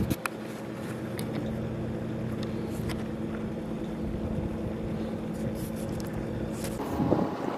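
A boat's engine running steadily, a low even hum, with a few small clicks near the start. The hum changes in tone about seven seconds in.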